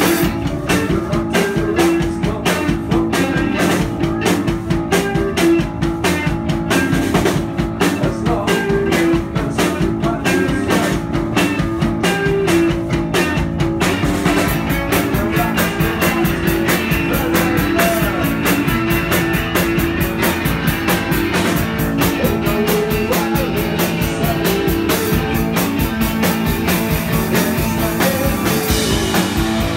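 Live rock band playing loud: electric guitars, bass and drum kit. The playing turns denser and more continuous about halfway through.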